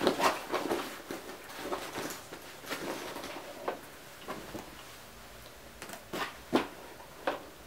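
Colour-block faux leather shoulder bag being handled and lifted by its straps: irregular rustles and light knocks of the bag's material and hardware, a few sharper ones near the end.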